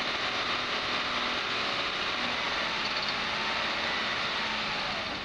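2010 Audi Q5 running on a lift for a drivetrain test, its engine and drivetrain turning the raised wheels with a steady mechanical noise.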